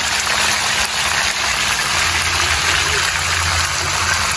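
Whole red snappers sizzling in hot frying oil in a steel pan: a steady, even hiss, over a constant low hum.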